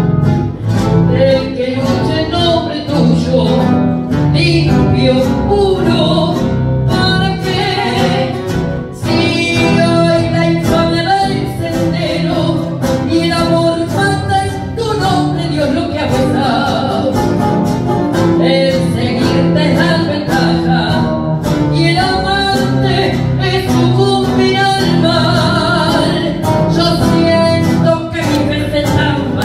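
A woman singing a tango into a microphone with instrumental accompaniment, her voice holding long, swelling notes.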